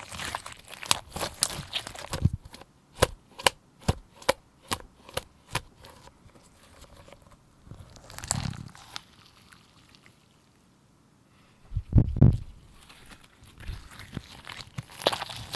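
Slime being pressed and worked by hand. A run of sharp, sticky clicks and pops comes about two a second through the first half, then a low thump about twelve seconds in, and crackly pops near the end.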